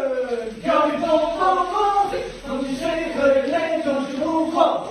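A group of young men singing together without accompaniment, in held notes that step between pitches, opening with a falling slide.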